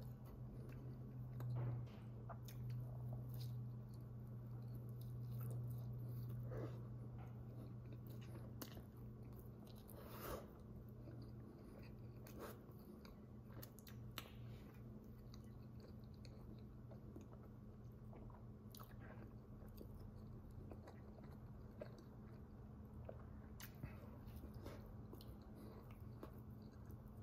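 A person chewing and biting into White Castle cheeseburger sliders, with faint mouth-chewing sounds and scattered small clicks. Underneath is a steady low hum that is louder for the first several seconds.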